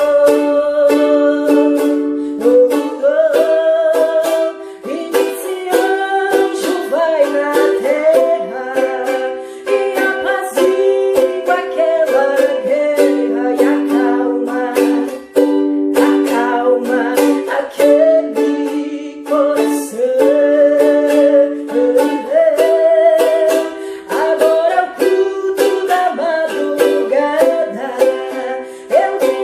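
Ukulele strummed in a steady rhythm, playing the chords of a congregational hymn under a wavering melody line.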